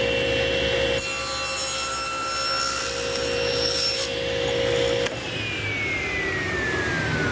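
Table saw running, its blade cutting into the end grain of a board held upright in a tenoning jig from about a second in to about four seconds in. About five seconds in the motor is switched off and its whine falls steadily as the blade coasts down.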